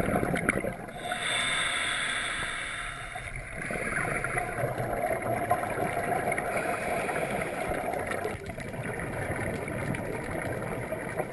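Scuba diver's regulator breathing underwater: a hissing inhale about a second in, then a long bubbling exhale, muffled through the camera's underwater housing.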